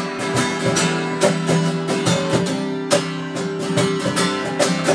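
Acoustic guitar strummed in a steady rhythm, about three strums a second, with chords ringing between strokes.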